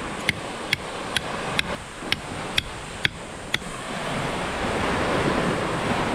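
Knife blade chopping at a small husked coconut, sharp strikes about twice a second, eight or so, stopping about three and a half seconds in. Surf and wind noise swell up after the chopping stops.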